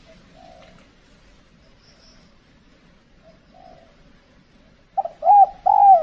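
Spotted doves cooing: two faint coos early on and midway, then a loud, close three-note coo near the end, its last note falling away.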